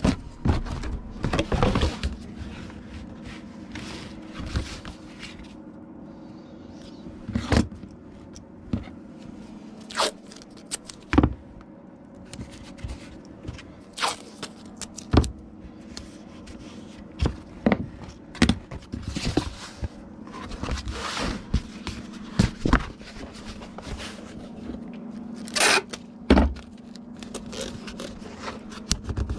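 Packing a comic book for shipping: scattered knocks, taps and scrapes as packing materials are handled, over a steady low hum.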